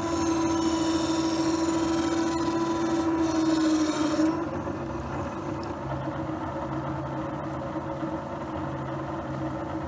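Dick SM-111 knife-sharpening machine running, its motor humming steadily while work held against the spinning grinding wheel gives a scraping, hissing grind. About four seconds in, the grinding hiss stops abruptly and the motor hum carries on.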